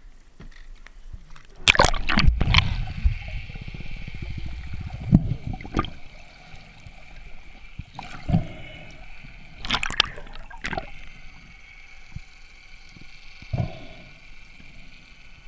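A spearfisher's splash into the sea about two seconds in, followed by bubbling and gurgling of water around the submerged camera, with a few more short splashes and bubble bursts as he swims and dives.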